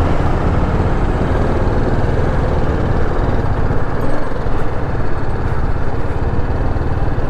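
Sport motorcycle engine running steadily as the bike pulls away and rides along a road, heard from the rider's helmet-mounted camera mic.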